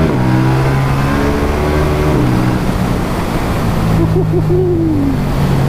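KTM 790 Duke's 800cc parallel-twin engine pulling under acceleration on the road, with heavy wind noise over the helmet microphones; its note changes about two seconds in.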